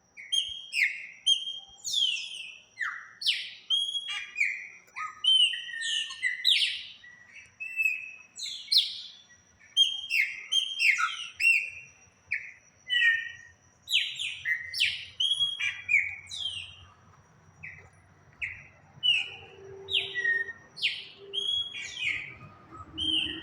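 Small birds chirping and singing, a rapid run of short calls, many of them sliding down in pitch, thinning out in the last few seconds.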